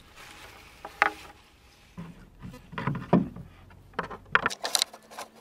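A metal pin and wooden outrigger parts knocking and clicking as the pin is pushed through the holes of the outrigger's wooden strut bracket. There is a sharp knock about a second in, a duller thump around three seconds, and a quick run of clicks near the end.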